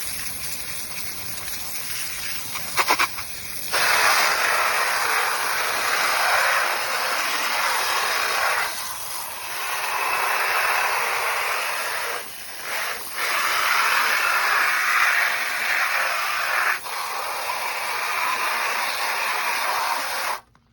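A jet of water spraying onto the dirty plastic parts of a wall fan, hissing and splashing as it blasts the grime off. It comes in three long bursts with short pauses between them, after a few clicks about three seconds in, and cuts off sharply at the end.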